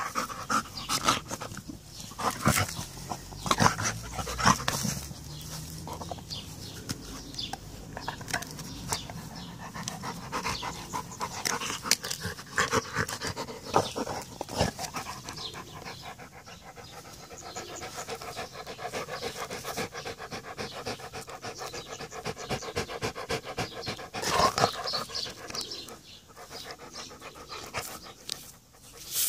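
Golden retriever panting while it grips and chews a wooden stick, with many short clicks of teeth on the wood.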